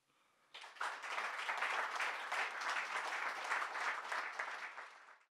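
Audience applauding, starting about half a second in; the applause cuts off abruptly near the end.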